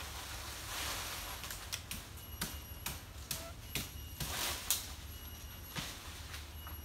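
Someone working at nipa palm stems: several sharp knocks at uneven intervals, with short bursts of dry frond rustling.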